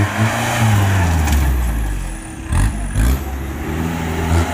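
Off-road 4x4 jeep's engine revving hard under load, its pitch rising and falling again and again, with a sharp drop and rise about two and a half seconds in.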